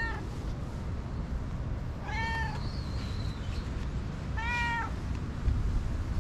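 Tabby cat meowing: two short meows about two seconds apart, each about half a second long, with the end of an earlier meow at the very start.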